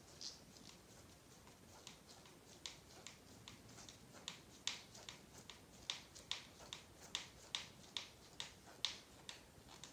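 Hex driver turning a screw into a plastic RC buggy transmission case and aluminium motor plate: a string of faint, sharp clicks, sparse at first, then about two to three a second from about four seconds in.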